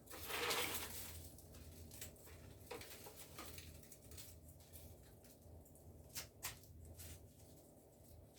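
Rustling of leaves being handled, loudest in the first second or so, then scattered soft rustles and light clicks, with two sharper clicks about six seconds in.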